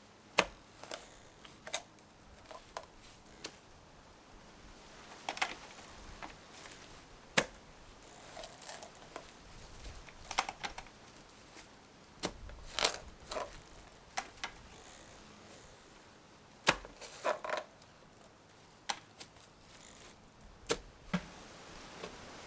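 Irregular sharp knocks and clicks, a few with a brief hollow ring, spaced unevenly over the whole stretch, the sound of wood and tools being handled.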